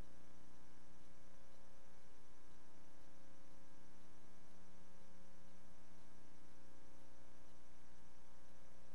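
Steady electrical hum made of many even tones over a faint hiss, unchanging throughout: the background noise of a silent archival film transfer, with no other sound.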